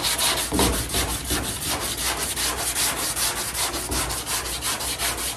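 180-grit sandpaper on a hand sanding block scrubbed back and forth over cured body filler on a car's steel body panel, in quick even strokes about four or five a second. This is the finer sanding pass that levels the filler flat after the 80-grit cut.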